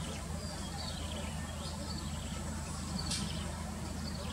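Heavy truck-and-trailer's diesel engine running steadily at low revs while reversing, with a few short bird chirps over it.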